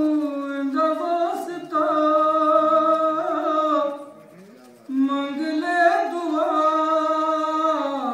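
A man singing a devotional song in praise of Imam Hussain, drawing out long held notes with wavering ornaments. There is a short pause for breath about four seconds in.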